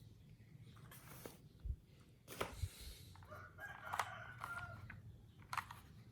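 A rooster crowing faintly in the background for about a second and a half, starting a little past the midpoint, over scattered light clicks and knocks of objects being handled.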